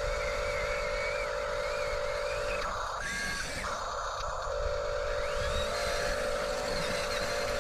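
Small electric motors and gearboxes of a radio-controlled toy construction vehicle whining steadily, pausing for about two seconds midway, then running again with the pitch rising.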